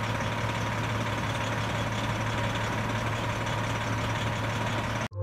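Fire engine's engine idling steadily at the roadside, a constant low hum, which cuts off suddenly near the end.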